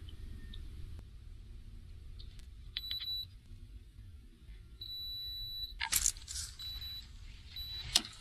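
Several short, high electronic beeps from a device on the boat, one of them held for about half a second, over a low rumble. Two loud clattering knocks of gear being handled, about six and eight seconds in.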